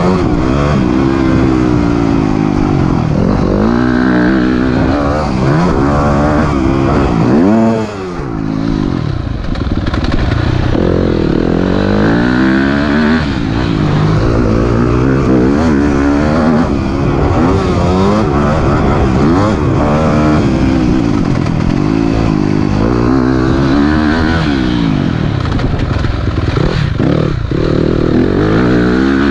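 Yamaha YZ250F's four-stroke single-cylinder engine, heard on board as it is ridden hard, revving up and backing off again and again as the throttle is opened and closed. About eight seconds in the revs rise steeply, then the sound drops suddenly before picking up again.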